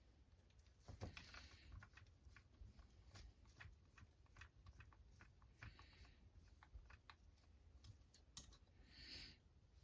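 Faint, scattered clicks and light rattles of small parts and tools being handled while an RC crawler chassis is reassembled, with a couple of sharper clicks and brief soft rustles.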